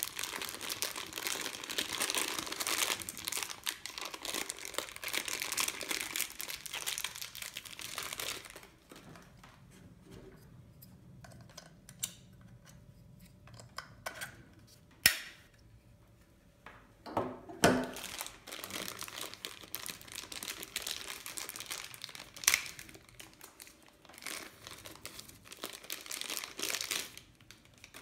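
Thin plastic accessory bags crinkling as cables and parts are unwrapped, in two long stretches. Between them come a few sharp plastic clicks, the loudest about halfway through as a plug adapter is snapped onto the power supply.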